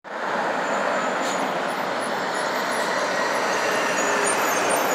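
Road traffic: cars and a concrete mixer truck driving past, a steady rush of engine and tyre noise that grows slightly louder as the mixer truck draws close.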